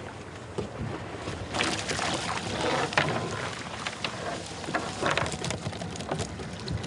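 Water streaming off a cast net and a catch of live pogies flapping and slapping on a boat deck: a run of quick splashes and slaps.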